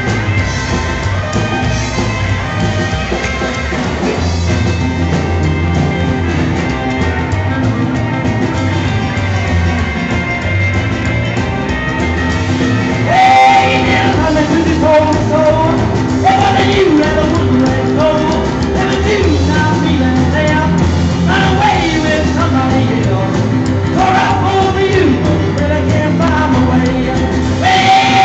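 Live rock and roll band playing: electric piano, drum kit and electric guitar, with a man singing.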